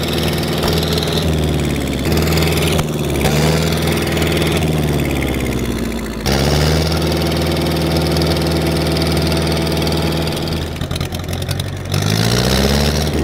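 Old farm tractor's engine running as its front loader pushes a round bale. The engine speed shifts, dips briefly about six seconds in, and rises as it revs up near the end.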